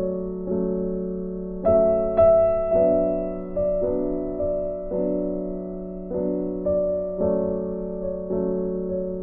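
Background music: soft electric piano playing slow chords, each chord struck and left to fade.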